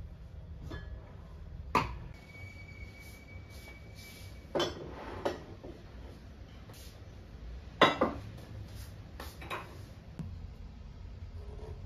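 Ceramic plates, bowls and glassware clinking and knocking as they are set down and moved on a wooden tabletop. There are about half a dozen sharp clinks: one near two seconds in leaves a thin ringing for about two seconds, and the loudest pair comes about eight seconds in.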